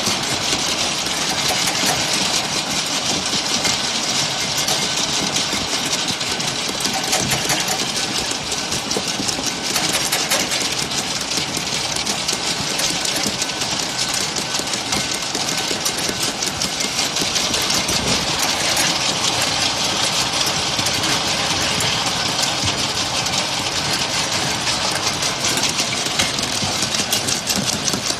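Ultrasonic bottle washing machine running, a steady mechanical noise with a fast, even clatter.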